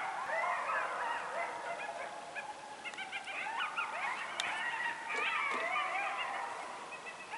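A coyote pack howling and yipping together, many high wavering voices overlapping in a chorus that thins and fades near the end.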